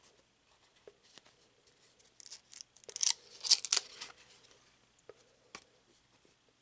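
Trading cards handled and shuffled in the hands: light ticks of card edges, with about a second and a half of cards sliding and flicking against one another near the middle.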